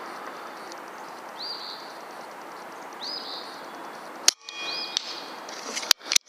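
A single rifle shot cracks about four seconds in, and a few sharp clicks follow near the end. A bird chirps three times over a steady outdoor hiss.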